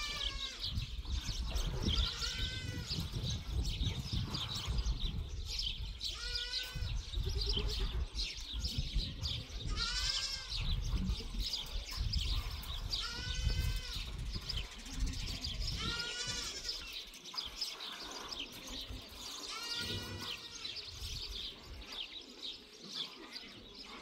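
Goats bleating, about seven high-pitched calls spaced a few seconds apart.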